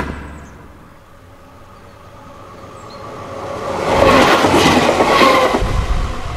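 Intro sound effect of an EDM track: a sharp hit, then a loud rushing noise that swells up and peaks about four to five and a half seconds in, ending in a deep boom.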